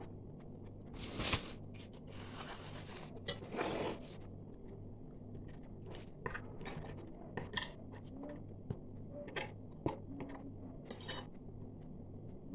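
Kitchen utensils and dishes being handled: scattered light clinks and knocks with a few short scrapes, over a faint steady low hum.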